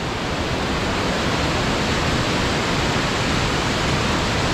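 A waterfall pouring down a rock face into a plunge pool, with white water running out over the rocks: a steady, even rush of water with no breaks.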